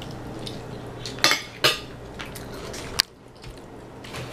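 A metal fork clinking and scraping against a plate while eating: two sharp clinks about a second and a half in, and one more near three seconds in, over a faint steady hum.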